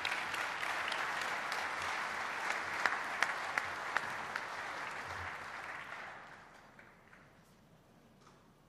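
Audience applauding, dying away about six to seven seconds in.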